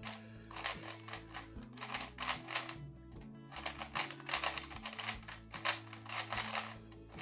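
ShengShou YuFeng V2M magnetic 3x3 speedcube being turned quickly by hand: a fast, irregular clatter of plastic layer-turn clicks. The cube has no lubricant and feels very dry out of the box.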